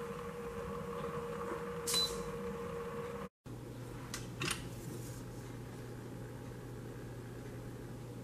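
Instant Pot control panel giving a short high beep as the Cancel button is pressed to stop the sauté, over a steady hum. After a cut, two light metallic clicks as the stainless steel inner pot of boiled milk is lifted.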